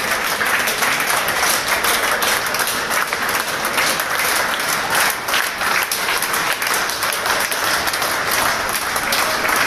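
Steady applause from many people clapping their hands together.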